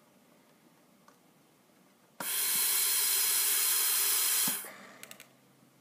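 Bird Mark 8 pneumatic respirator delivering one breath into a test lung: a loud, steady hiss of gas flow that starts abruptly about two seconds in, holds for a little over two seconds, then cuts off and trails away with a few light clicks.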